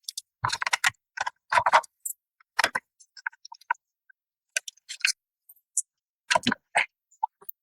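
Irregular metallic clicks and clinks of hand tools and bolts working on the air valve end cap of a Wilden air-operated double-diaphragm pump, as its two end-cap bolts are removed. The clicks come in short clusters with brief pauses between.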